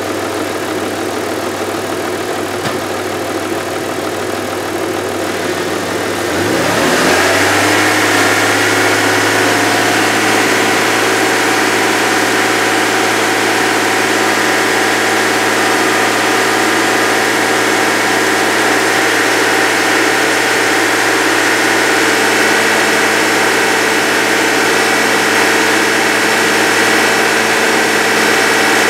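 2000 Audi A6's 2.8-litre V6 engine idling, then its revs climb about six seconds in and are held steady at a raised speed.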